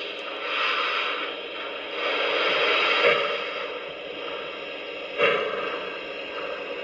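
Onboard sound system of an O-scale model PRR T1 Duplex steam locomotive with Lionel Legacy sound, giving out steady steam hissing that swells and fades, with a sudden louder burst about five seconds in, as the model runs along the track.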